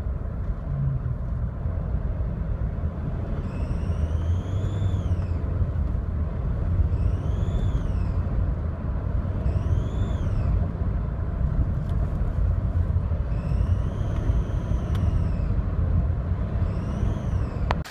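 Kia Sorento engine running with a steady rumble, and a whistle from the leaking intake manifold gasket that rises and falls in pitch about five times: the gasket under the intake manifold is blown.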